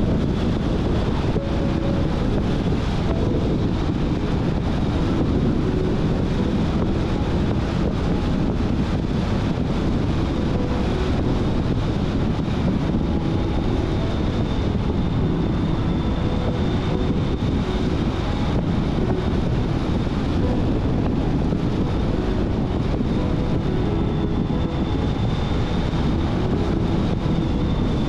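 Steady rush of wind and tyre noise from a car driving along a road, with wind buffeting the microphone.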